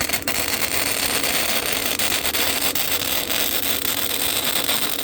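Lincoln flux-core wire-feed welder arc crackling and sputtering steadily as it lays a bead on thin exhaust pipe, after a couple of short strikes just before it catches.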